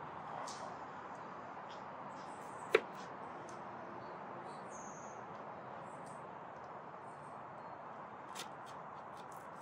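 A knife cutting a jalapeño on a board: one sharp knock about three seconds in and a few faint clicks near the end, over a steady background hiss.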